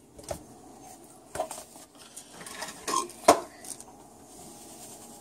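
A handful of short clinks and taps of a spoon against a mixing bowl as a teaspoon of salt is added to cookie dough, the loudest about three seconds in.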